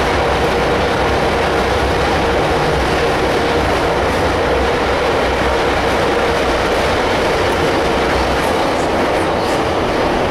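Metro train running, heard from inside the carriage: a loud, steady rumble with a steady tone held over it.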